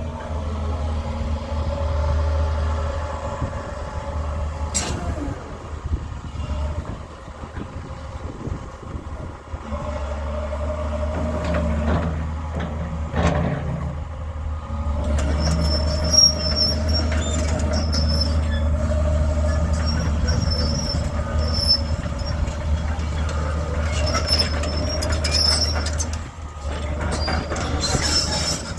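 Doosan 225 hydraulic excavator's diesel engine running with a steady low drone and a hydraulic whine. The level drops for a few seconds and then comes back up as the load changes. In the second half there are repeated high-pitched squeaks.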